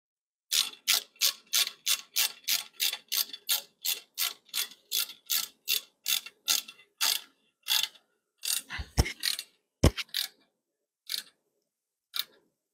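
Hand ratchet with an Allen socket clicking in a quick steady rhythm, about three strokes a second, as it tightens the bolts holding a motorcycle crash bar to the engine. The strokes stop about eight seconds in, followed by a couple of dull knocks and a few odd clicks.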